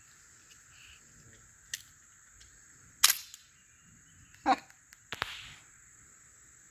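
Taurus Spectrum .380 pocket pistol being handled: a few sharp metallic clicks and clacks, the loudest about three seconds in, as a magazine is slapped in and the slide snaps forward, chambering a round.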